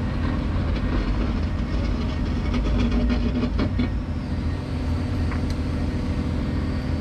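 Excavator diesel engine and hydraulics running steadily, heard from inside the cab, while a steel slide-rail shoring panel hanging on chains is lowered into its rail posts. Metal clanks and chain rattles come through during the first few seconds.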